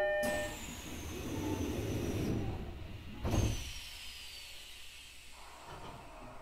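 E129-series train standing at the platform as a chime ends and the doors close: a hiss and low rumble with a thin high whine that slides down in pitch, a thud about three seconds in, then a second falling whine.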